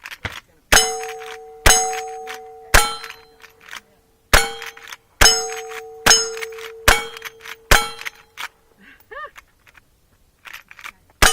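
Gunshots at steel targets, about one a second, each followed by the ringing of the hit steel plate. After a pause of a few seconds comes one more shot and ring near the end.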